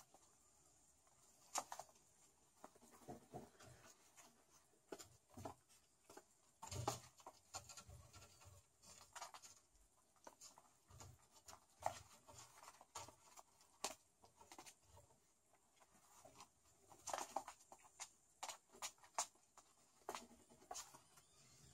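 Faint, irregular scratching and tapping of kittens' paws and claws on a wooden floor as they play-fight and scamper.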